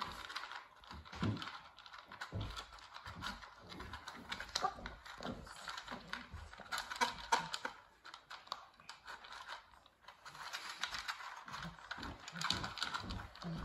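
Cavalier King Charles spaniel puppy eating from a plastic food bowl: irregular crunching and clicking of food and teeth against the bowl, with a short lull about eight seconds in.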